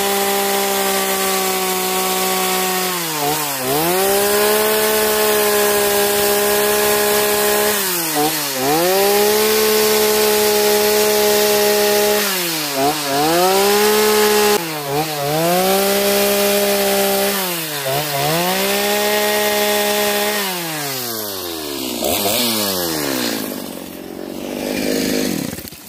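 Two-stroke chainsaw with a carving bar cutting wood at high revs. The revs drop and pick back up about five times, then fall away toward idle near the end.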